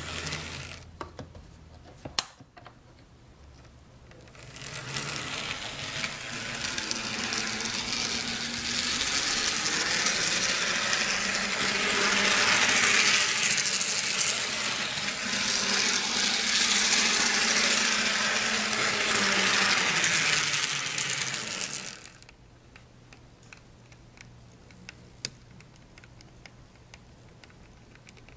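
Bachmann N scale DDA40X locomotive, shell off, running on its 3D printed replacement axle gears: a steady whir of motor and gears that swells in about four seconds in and drops away suddenly at around twenty-two seconds, leaving faint clicking.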